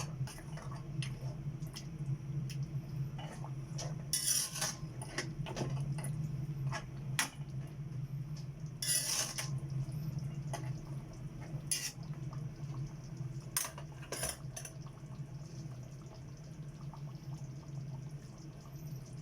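Kitchen utensils clinking and scraping against pots and dishes, irregular and busiest in the first three quarters, over a steady low hum.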